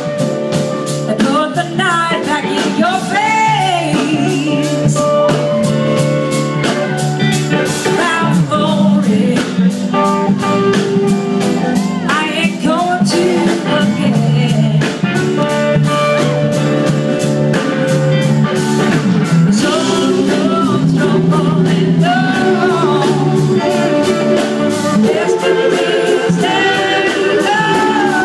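Live band playing blues rock: electric guitars over drums, with singing.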